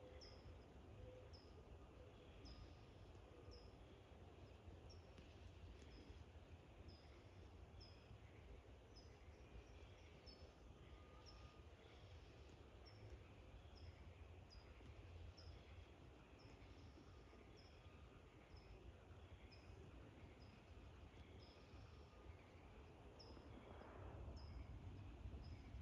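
Near silence: a faint low background rumble under a short, high chirp that repeats steadily, about three times every two seconds, from a small animal calling.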